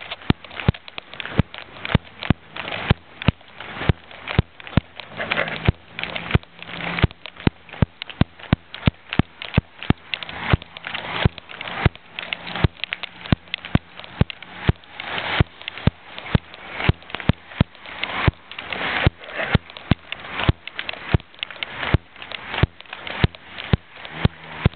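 Footsteps on a city sidewalk, about two steps a second, knocking through the handheld camera, over street traffic noise that swells and fades. A faint low hum comes in about five seconds in and lasts several seconds.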